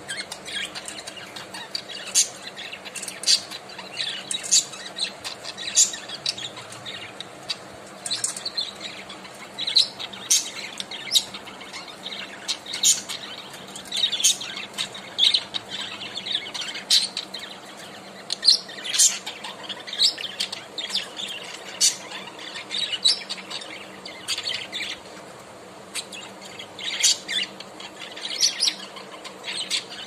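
A group of caged budgerigars chirping and squawking, with many short calls coming in quick irregular clusters, several birds at once.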